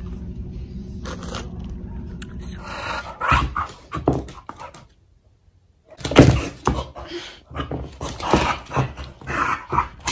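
Steady indoor store hum for the first few seconds. After a short gap, a blue heeler-type dog barks and vocalizes in short, irregular bursts, the first one the loudest.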